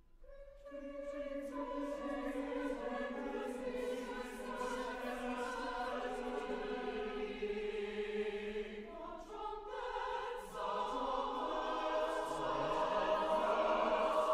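Mixed choir of men's and women's voices singing sustained chords in parts. The voices enter together at the start and swell louder near the end.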